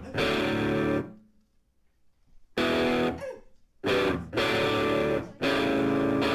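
Background music: guitar chords, each held for about a second and stopping sharply. The first chord ends about a second in, a gap of a second and a half follows, then several more chords come in quick succession.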